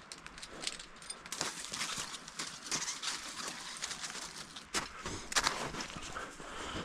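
Irregular clicks, knocks and rustling from people moving about and handling gear on rock.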